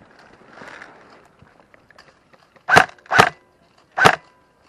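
Airsoft rifle firing three sharp single shots, the first two about half a second apart and the third just under a second later, after a moment of faint rustling in the brush.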